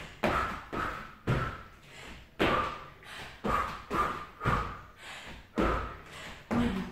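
Trainer-shod feet landing jumps on a wooden floor: a regular run of thuds, about two a second, each with a short ring.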